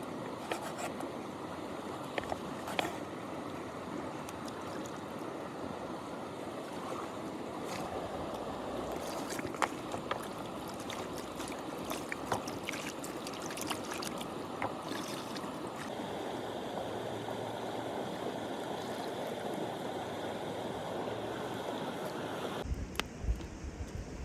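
River water flowing steadily, with scattered short clicks over it. The rushing sound changes character abruptly a few times.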